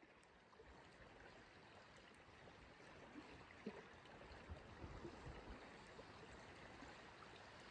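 Near silence: faint, gentle lapping of shallow lake water around bare feet, with a few tiny clicks.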